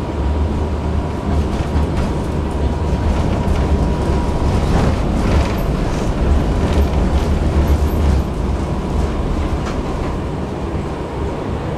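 Tram running on rails: a steady low rumble with a faint steady whine above it, and a run of clicks and knocks from the wheels in the middle stretch.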